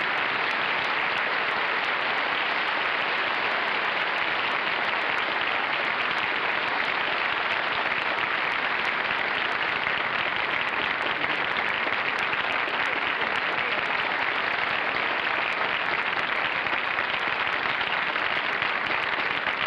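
Studio audience applauding steadily and without a break.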